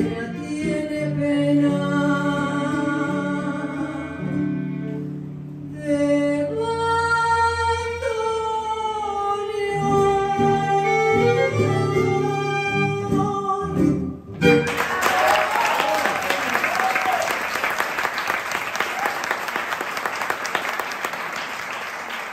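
Final phrases of a tango sung by a woman with acoustic guitar and violin, ending on a long held note. About fourteen seconds in, the music stops and the audience applauds.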